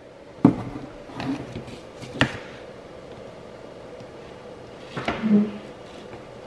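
Handling knocks from a hand reaching into a cardboard box and a plastic tub of liquid: a sharp knock about half a second in, a softer bump, and another sharp knock a little after two seconds. A short voice sound follows about five seconds in.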